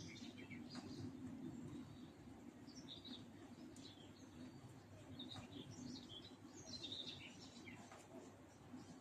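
Small birds chirping faintly in short, scattered calls over a low, steady background hum.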